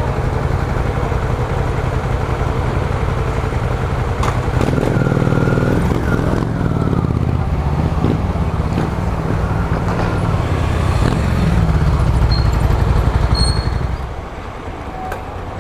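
Honda CG 125's single-cylinder four-stroke engine running under way, with a steady rush of noise over it. The engine note shifts about five seconds in, and the sound drops off noticeably near the end as the bike eases off.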